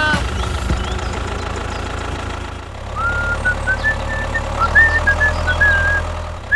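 Tractor engine running steadily at a low idle-like drone. About three seconds in, a high whistled tune of short notes and glides joins it.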